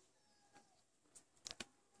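Near silence with a few faint sharp clicks, two of them close together past the middle: small crackles from foam-bead slime being handled.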